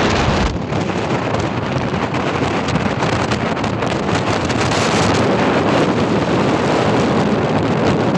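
Steady wind buffeting the microphone: a dense, even rushing noise with no distinct events.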